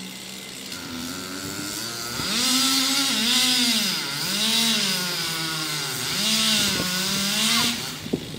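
Two-stroke chainsaw idling, then revved and cutting into wood from about two seconds in, its engine pitch dipping and recovering several times under load. It drops back near the end.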